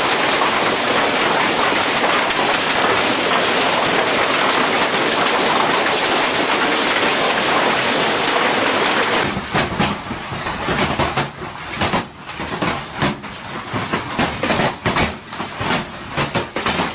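Heavy storm rain pouring with a dense, steady hiss; about nine seconds in it changes to hailstones clattering on hard surfaces in rapid, irregular sharp hits.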